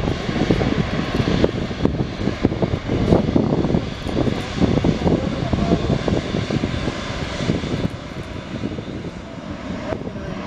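The two General Electric GE90-115B turbofans of a Boeing 777-300ER running at taxi power as the jet rolls slowly past. It is a steady jet noise with an uneven, rumbling low end.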